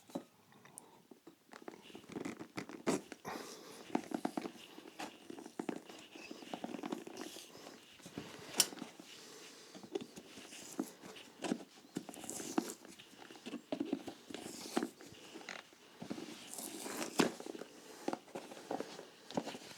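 Rubber part of a leather shoe's heel being pried and pulled away by hand and tool: irregular scraping, creaking and tearing with many sharp clicks and knocks.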